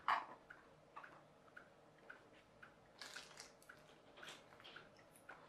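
Faint taps and clicks of small parts and a plastic tray being handled on a table, with a sharper knock right at the start and a short rustle about three seconds in.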